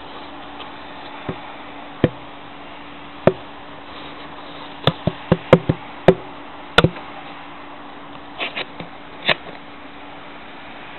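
A series of sharp, irregular taps and clicks, about fifteen, coming thickest in the middle, over a steady low hum and faint hiss.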